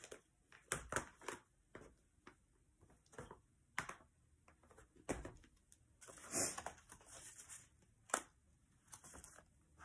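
Scattered light clicks, taps and a short rustle of small craft supplies being handled and set down on a desk.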